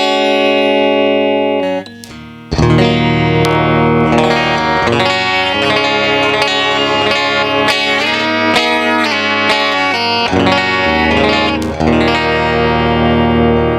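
Electric guitar, a Les Paul copy on its original pickups, played through a Line 6 POD GX with effects: ringing chords and single notes, with a short break about two seconds in.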